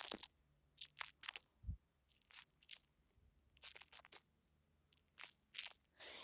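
Foam worked by hands close to the microphone: quiet, short crisp bursts of sound in small groups, with brief pauses between.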